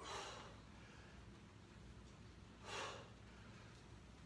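A man breathing out sharply twice, about two and a half seconds apart, from the effort of single-leg pistol squats. Between breaths there is only a faint room hum.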